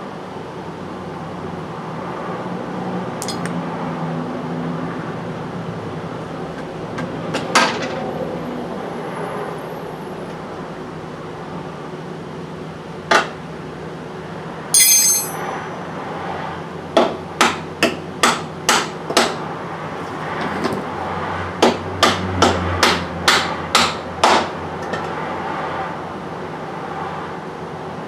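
Hammer blows on metal while freeing a Jeep Cherokee XJ's front lower control arm. A few scattered knocks and a ringing clink come first, then a run of about a dozen sharp strikes, roughly two a second.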